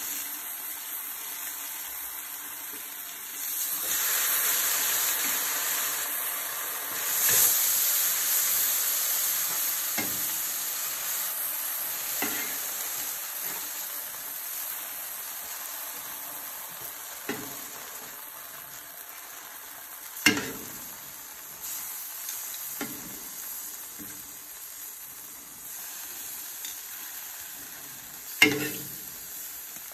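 Tortillas and shredded beef sizzling on a Blackstone flat-top griddle. The sizzle swells louder about four and seven seconds in, then slowly eases. A few sharp clicks of metal utensils against the steel come through it, the loudest two about twenty and twenty-eight seconds in.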